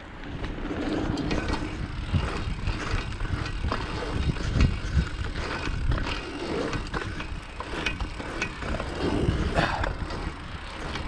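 Bicycle rolling round a pump track over tarmac and packed dirt: a steady rumble of tyre noise, dotted with short knocks and rattles from the bike as it goes over the rollers.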